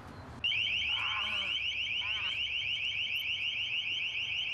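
Long Range Acoustical Device (LRAD) blasting its ear-splitting deterrent tone, a loud warble of rapidly repeating rising sweeps. It starts up again about half a second in, after a brief dip, and holds steady.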